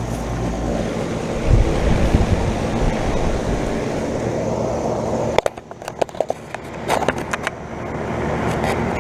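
1998 2.5-ton R-22 central air conditioner condenser unit running: a steady fan whoosh over a low compressor hum. About five and a half seconds in the sound drops away and a run of clicks and knocks follows, then the unit's noise builds back up.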